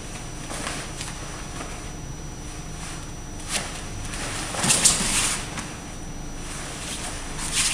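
Heavy judo gi cloth rustling and brushing as two judoka grip and pull at each other, with a few short scuffs. The loudest rustle comes about five seconds in.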